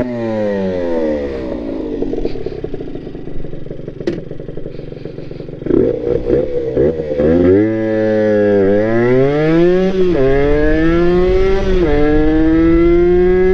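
Honda NSR80's 80cc two-stroke single-cylinder engine. At first its revs fall away and it runs low. About six seconds in it pulls away, the revs climbing through the gears and dropping briefly at each upshift, twice near the end. It is running well on a test ride after a head gasket replacement, with no misfiring.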